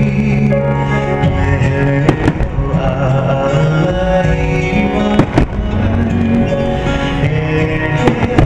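Music with long held tones plays steadily, broken by a few sharp firework bangs: one about two seconds in, two close together around five seconds, and one near the end.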